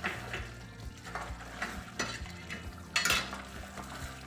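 Silicone spatula stirring a thick chicken and paneer curry in a stainless steel pot, a series of short scraping strokes with the loudest about three seconds in, while the gravy sizzles in freshly added ghee over the flame.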